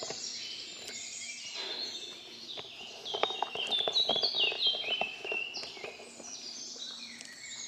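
Several songbirds singing and chirping in woodland, with many short falling notes. A run of soft, irregular crunches of footsteps on the path grows louder about three seconds in.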